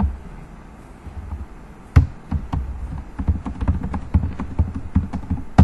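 Typing on a computer keyboard: a quick, irregular run of keystrokes with dull thumps. Two harder presses stand out, about two seconds in and at the end.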